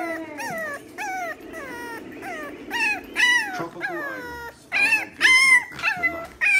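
A French bulldog puppy whining and crying in a crate: a string of short, high whines, each falling in pitch, about two a second, with a few louder yelps among them.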